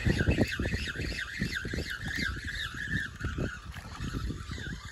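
Handling noise: a cloth sleeve rubbing and bumping against the phone's microphone in irregular muffled thumps, while a thin, wavering chirping runs on above it.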